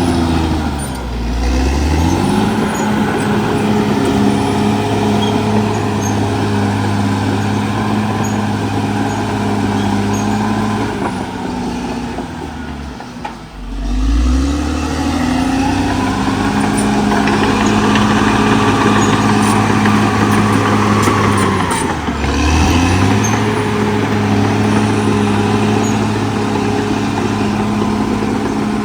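Caterpillar D6R XL bulldozer's diesel engine running hard, its pitch dropping and climbing back three times: about a second in, around halfway, and about three quarters of the way through.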